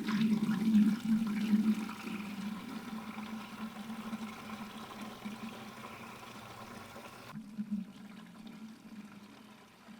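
Water pouring steadily into a container, loudest in the first two seconds and then easing off, with the hiss cutting off about seven seconds in.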